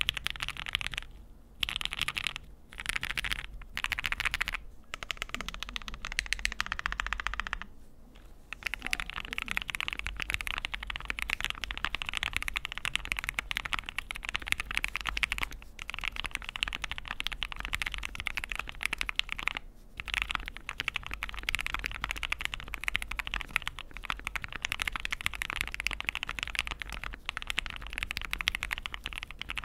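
Fast typing on a mechanical keyboard with aftermarket keycaps, a dense stream of keystroke clacks. Short bursts broken by brief pauses come first, then about eight seconds in the typing runs on almost without a break.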